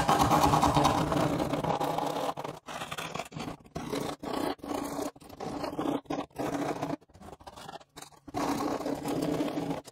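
Knife blade scraping and trimming the rough cut edge of a hole in a hollow-core door's thin wood skin. A long run of scraping comes first, then shorter strokes with brief pauses between them.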